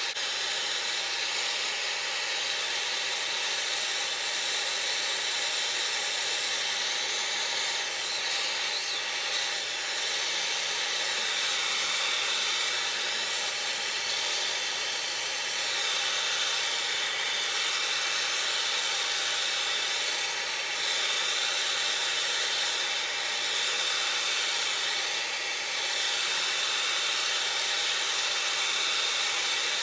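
Soldering torch flame burning with a steady hiss while heating a pipe fitting for soldering.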